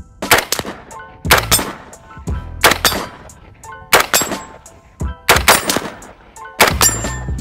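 M1 Garand rifle firing .30-06 rounds, a shot about every 1.3 seconds, each a sharp double crack with a rumble after it. Background music runs under the shots.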